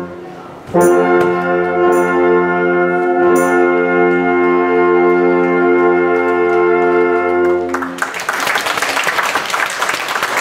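Wind band of brass, saxophones and clarinets sounds a long held final chord after a short pause; the chord cuts off about eight seconds in and applause follows.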